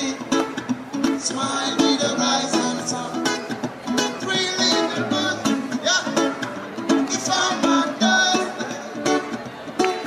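Acoustic guitar strummed in a steady reggae rhythm, played live by a street busker.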